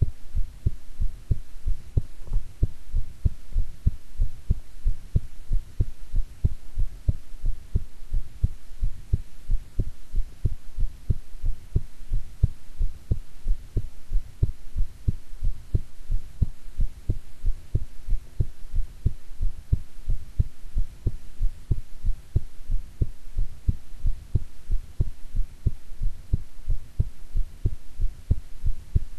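A woman's heartbeat, beating steadily in an even, regular rhythm of low thuds, with a faint steady hum underneath.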